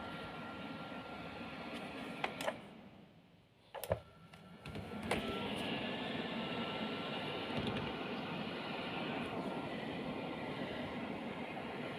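Scarlett SC-FH53K03 fan heater blowing steadily; about two seconds in its switch clicks and the fan winds down almost to silence, then after further clicks it starts up again about five seconds in and runs steadily.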